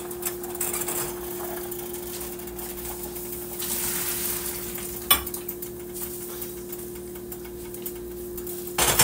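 Hot water and cooked tapioca pearls being poured through a mesh strainer into a kitchen sink, with clinks of the pot and utensils, over a steady hum. A sharp knock comes about five seconds in, and a louder clatter of kitchenware near the end.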